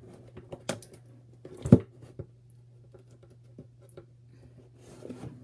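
Scissors clicking and cutting at a cardboard box, with scattered small taps and one sharper knock a little under two seconds in, over a faint low hum.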